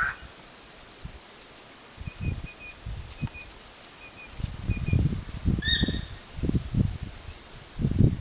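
Outdoor ambience: a steady high-pitched insect drone, a few short bird chirps and one brief bird call a little past halfway. Irregular low bumps and rumbles come and go from about two seconds in.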